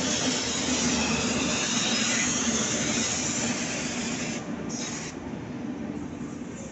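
Indian Railways LHB passenger coaches rolling past at close range behind an electric locomotive: a steady rushing hiss of wheels on rail. The hiss eases about four and a half seconds in.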